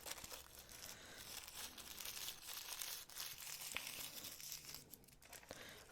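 Faint crinkling and rustling of packaging with a few light clicks, as small metal jewelry clasps are handled.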